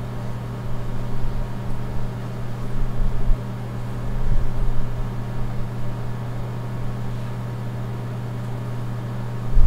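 Steady low electrical hum with an even hiss and a faint steady high tone, from running bench test equipment and the receiver under test.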